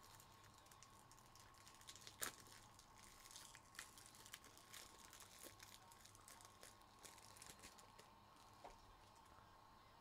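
Near silence with faint, scattered light clicks and rustles, like keys or card packaging handled at a desk, and one sharper click about two seconds in. A faint steady high tone runs underneath.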